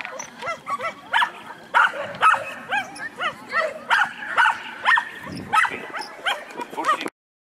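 Dog barking over and over in a fast run, about three barks a second, cutting off suddenly near the end.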